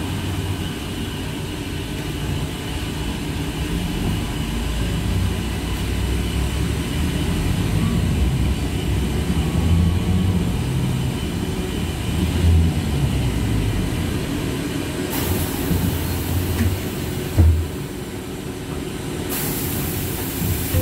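Ride noise inside a TrolZa-62052.02 trolleybus on the move: a steady low rumble with a faint steady whine. There is a single knock about seventeen seconds in, and two spells of hissing in the last six seconds.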